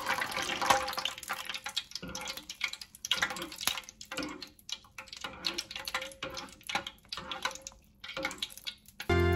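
Fine-mesh skimmer swept through a pan of hot frying oil, the oil sloshing and dripping off the mesh in faint, irregular splashes, as leftover bread crumbs are skimmed out after frying.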